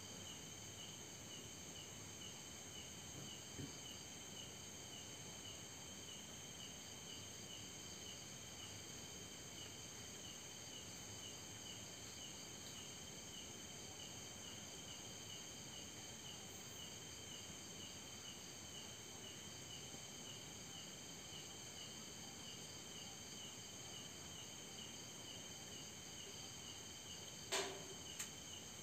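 A steady chorus of night crickets, one of them chirping in a regular pulse. About a second before the end comes a single sharp knock of something thrown landing, followed by a smaller click.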